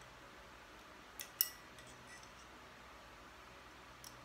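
Small metallic clicks as a key turns a tiny screw into a metal lightsaber shroud: two sharp clicks close together a little over a second in, and a faint one near the end.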